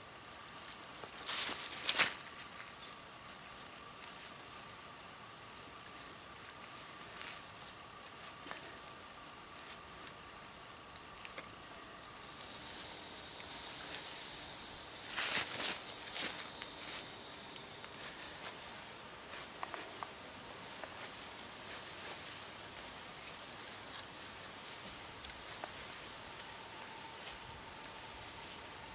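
Steady, high-pitched chorus of insects such as crickets. Over it come a few brief clicks and knocks, about a second and a half in, at two seconds, and again about fifteen seconds in, as a Scotch-eyed hand auger bores into a red oak log.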